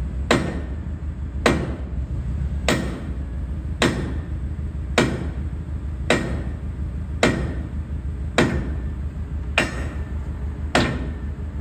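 Sledgehammer blows on a steel tow-bar coupling pin, evenly paced at about one a second, each blow ringing briefly like struck metal. A steady low hum runs underneath.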